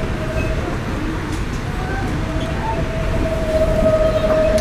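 Centovalli Railway electric train running, heard inside the passenger carriage as a steady low rumble of wheels on track. A steady whining tone comes in about halfway through and holds.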